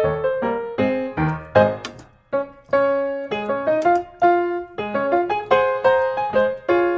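Background piano music playing a light melody of single notes and chords.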